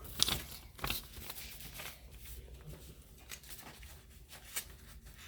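Faint rustling and handling noise, with a few light clicks in the first second.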